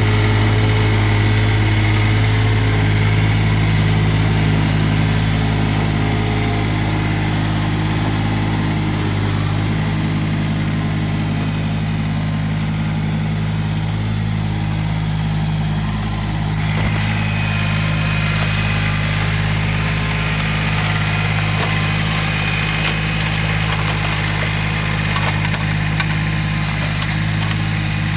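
Bolens DGT-1700 diesel lawn tractor engine running steadily while the tractor is driven, still warming up from a cold start near freezing. A few light ticks come in near the end.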